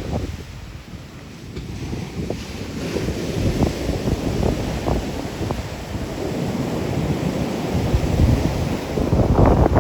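Rough post-storm surf breaking on a rocky beach, growing louder toward the end, with wind buffeting the microphone in low gusts.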